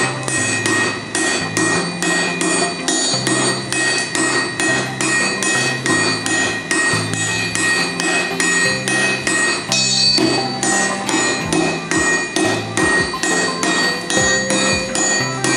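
Sledgehammer and hand hammer striking hot steel on an anvil in turns, a quick even rhythm of blows drawing out the bar, over background music with a bass line.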